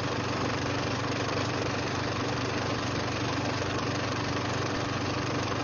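A film projector running: a steady mechanical whir and fine clatter with a low hum under a hiss.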